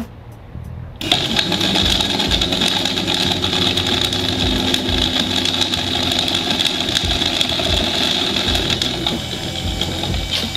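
Brand-new 12-volt electric radiator cooling fan, wired straight to a battery through a relay, switching on about a second in and then running with a steady, loud buzzing whir. It doesn't sound good: the fan turns out to be faulty, its motor not catching properly.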